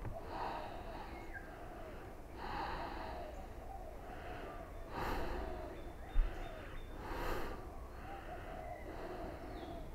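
A woman breathing audibly while holding plow pose, one breath about every two seconds. A short low thump a little after halfway.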